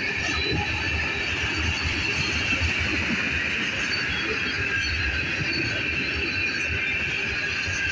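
Freight train cars rolling past on the rails: a steady low rumble of wheels on track under a continuous high-pitched squeal of steel wheels.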